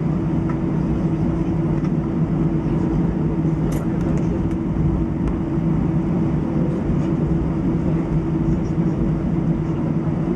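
Airbus A319 cabin noise while taxiing, heard inside the cabin: a steady hum from the engines at taxi power over a low rumble, with a few faint clicks about four seconds in.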